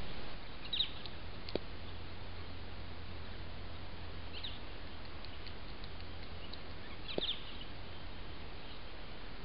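Trail camera's microphone noise: a steady hiss with a low electrical hum. Over it come three faint, short, high bird chirps, about a second in, near the middle, and about seven seconds in, with a couple of faint ticks.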